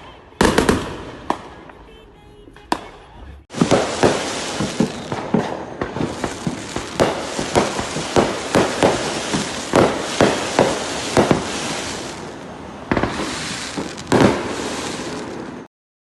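Fireworks going off: a few separate sharp bangs, then a dense barrage of rapid bangs over crackling. The barrage eases briefly near the end, picks up again with more bangs, and then cuts off suddenly.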